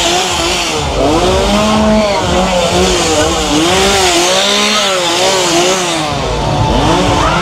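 Chainsaw revved over and over, its pitch climbing and falling about once a second.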